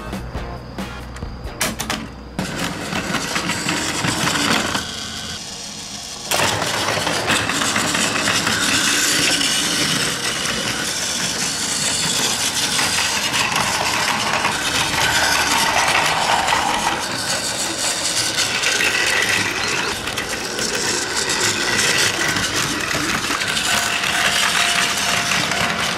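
Battery-powered Plarail toy trains running on plastic track, their motors and wheels making a continuous mechanical rattle that turns loud from about six seconds in. In the first couple of seconds, plastic clicks come from the cars being handled.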